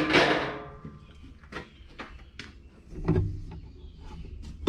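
A lidded chicken-feed can being handled: a loud scrape at the start that fades, a few light clicks, then dull thumps about three seconds in.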